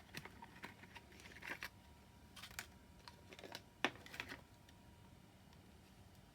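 Irregular light clicks and short scrapes through the first four and a half seconds, the sharpest click about four seconds in, then quiet: 9mm brass cases and bulge-buster tooling being handled.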